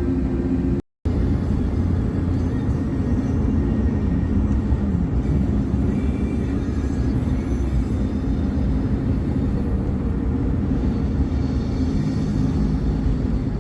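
Steady road and engine rumble inside a vehicle's cabin while it drives through snow, cut off briefly about a second in.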